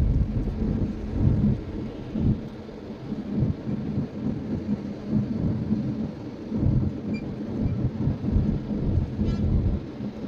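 Cabin noise of a Citroen C3 Aircross cruising at about 62 km/h in sixth gear, near 1500 rpm: a low, uneven rumble of road and engine noise from its 1.2-litre three-cylinder turbo-petrol engine and tyres.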